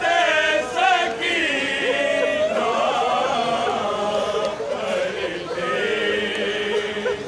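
Crowd of men chanting a noha, a mourning lament, together in unaccompanied unison, many voices overlapping.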